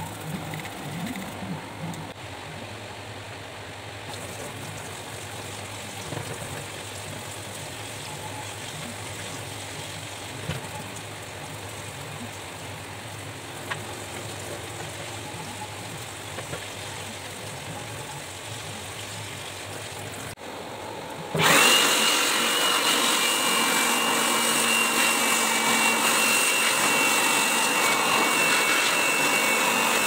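An electric air blower switches on abruptly about two-thirds of the way in and runs steadily and loudly with a high whine, drying a freshly washed circuit board. Before it, quieter scrubbing and rinsing at a sink.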